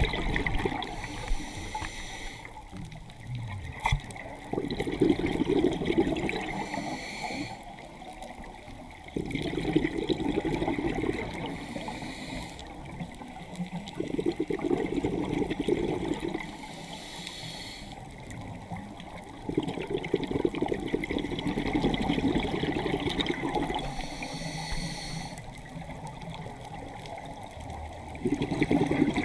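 Moving water rushing, swelling and easing in surges every four to five seconds.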